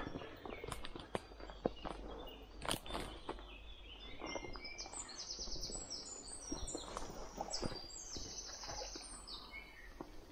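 Footsteps through leafy undergrowth, a scatter of short rustles and clicks, while birds sing, with a rapid high trill in the middle of the stretch.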